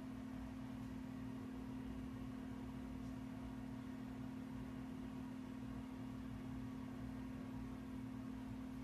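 Steady low hum of room tone: one constant tone over a faint rumble, unchanging throughout.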